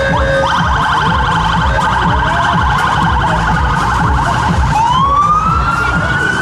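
Police car electronic siren in a fast, rapidly warbling yelp that switches near the end to a slow, rising wail, with a low traffic rumble underneath.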